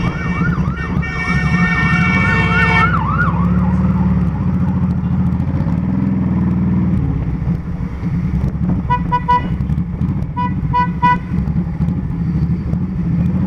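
Motorcycle engine running steadily under way, with a siren yelping rapidly up and down for the first three seconds or so. Two quick clusters of short beeps sound about two-thirds of the way through.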